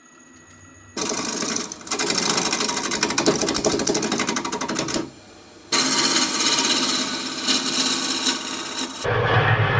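Power woodworking machine cutting wood blanks, a loud rattling noise with a fast rhythm, in short stretches that break off abruptly. Near the end a different machine with a low hum takes over.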